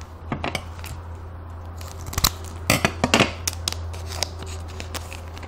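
Gold foil baseball card pack crinkling as it is picked up and handled for opening, with a cluster of sharp crackles about two to three seconds in, over a steady low hum.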